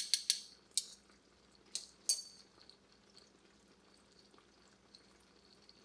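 Metal spoon clinking against a stainless steel pan: a quick cluster of taps at the start, one more just after, and two sharp ringing clinks about two seconds in, the last the loudest.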